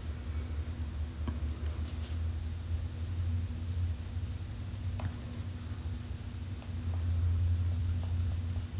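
Steady low hum, with a few faint light clicks scattered through it.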